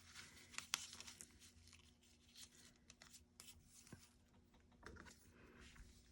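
Faint rustling and small clicks of velvet ribbon and paper being handled, with one sharper click a little under a second in.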